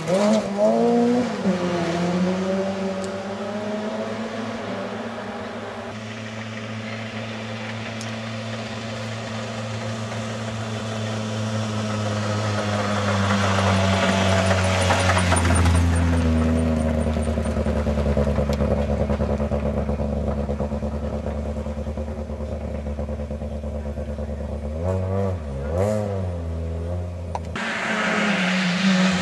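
Rally cars passing one after another on a gravel stage. A Volvo 900-series saloon's engine note falls away as it drives off, and an Opel Corsa approaches and passes at high revs around the middle. Near the end the sound cuts abruptly to a Honda Civic coming in, with tyres hissing on gravel.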